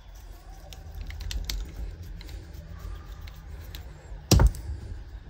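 Screwdriver working out the screws of an Oleo-Mac chainsaw's plastic starter cover: small scattered clicks and ticks, with one louder knock near the end.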